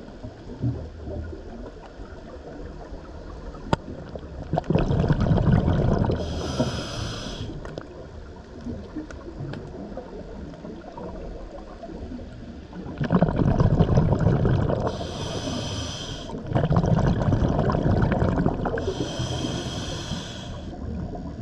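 Scuba diver breathing through a regulator underwater, three breaths: rumbling, bubbling exhalations, each paired with a short hiss from the regulator.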